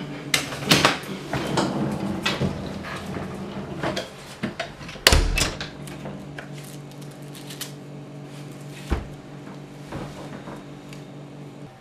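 Knocks, clicks and rattles of a wheeled suitcase and backpack being handled and set down, with a heavy thump about five seconds in and a lighter one about nine seconds in, over a low steady hum that stops near the end.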